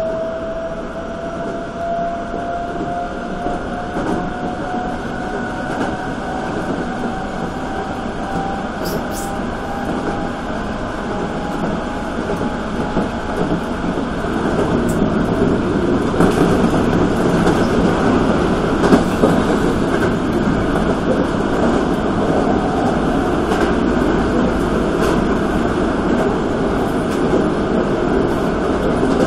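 Toei 5300-series electric train running along the line, heard from inside the cab. A thin motor whine rises slowly in pitch over the first dozen seconds as the train picks up speed. From about halfway the running noise grows louder, with occasional wheel clicks over rail joints.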